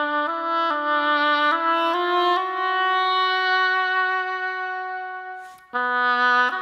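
Instrumental music with no singing: a single melody line steps through short notes, holds one long note that fades away about five seconds in, then starts a new phrase after a brief gap.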